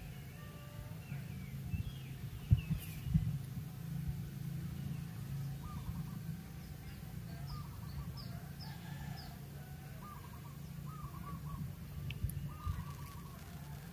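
Birds calling: short repeated calls and, midway, a run of quick high chirps, over a steady low hum. A couple of sharp knocks come a few seconds in.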